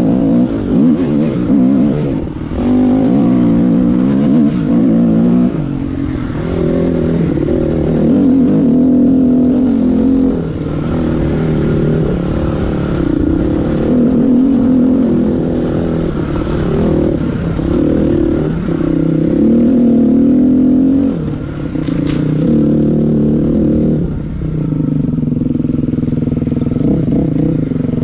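A 2008 KTM 250 SX-F dirt bike's single-cylinder four-stroke engine, heard up close on the bike, revving up and easing off again and again as it rides a rough dirt trail. A single sharp knock comes about three-quarters of the way through.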